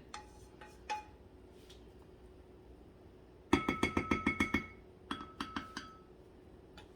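Whisk beating an egg mixture in a bowl, clinking rapidly against the bowl's side in two short runs about a second long, the bowl ringing with each stroke.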